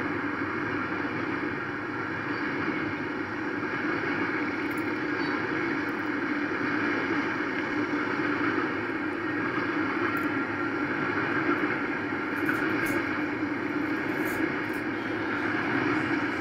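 Freight train rolling through a street crossing: a steady rumble of the cars going by on the rails, with a few faint high clicks in the second half.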